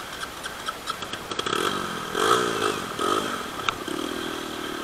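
Dirt bike engine revving, its pitch rising and falling in quick blips about two seconds in, then running at a steady pitch near the end.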